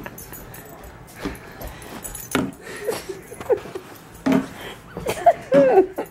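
A puppy plays with an empty plastic water bottle: the bottle crackles and knocks a few times, and there are short whines near the end.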